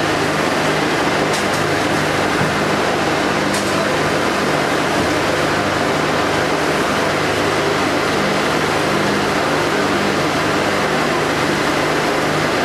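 Fishing boat's engine running steadily: a constant low hum under an even rushing noise.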